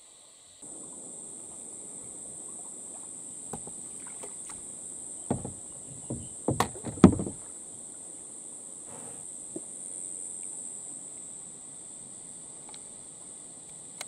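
Plastic kayak being paddled up onto a sandbank: a cluster of loud knocks and clunks about five to seven seconds in as the paddle and hull bump, over a low wash of water and a steady high-pitched insect drone.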